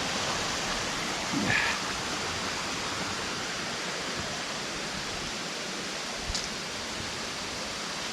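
Steady rushing of a jungle waterfall cascading over rock tiers, with a brief short sound about a second and a half in and a small click about six seconds in.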